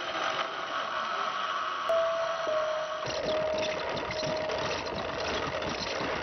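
Wooden hand-turned winding wheel spinning thread onto a bobbin: a steady whir with a held hum, then from about three seconds in a fast wooden clatter as the spoked wheel turns.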